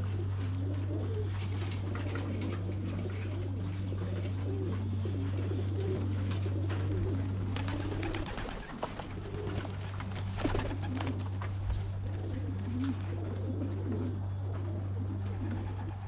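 Racing pigeons cooing continuously at the loft, with a few sharp wing flutters. A steady low hum runs underneath and briefly drops out about nine seconds in.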